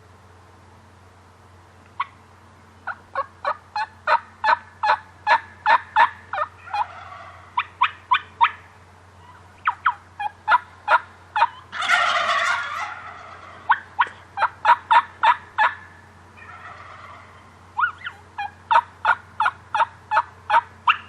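Turkey yelping in long runs of sharp, evenly spaced notes, about two to three a second, with a loud gobble about twelve seconds in.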